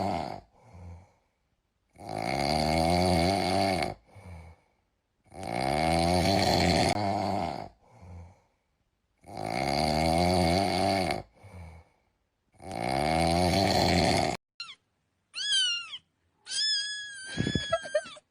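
Cat meme sound clips: a cat gives four long, wavering yowls of about two seconds each, with short faint sounds between them, then several shorter meows that glide down in pitch near the end.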